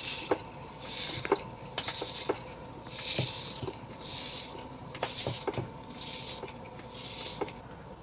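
Crushed Orbeez water-bead gel squishing and crackling as it is pressed out through a plastic press, in repeated soft wet crunches, with a few small plastic clicks.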